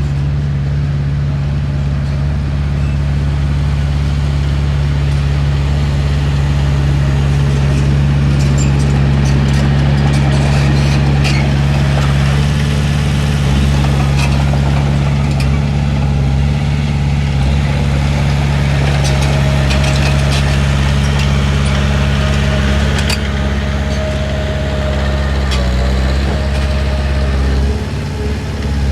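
Heavy diesel engine of earthmoving machinery running at a steady, loud, low drone, with a few faint clicks and clanks over it.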